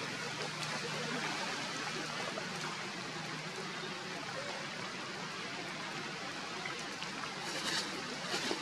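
Steady rushing of running water, like a stream, with a few faint clicks near the end.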